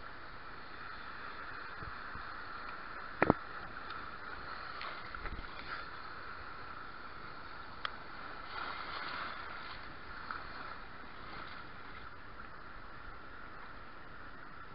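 Choppy shallow sea water washing and sloshing around a wader, as a steady noisy wash. A sharp knock sounds about three seconds in, and a fainter click near eight seconds.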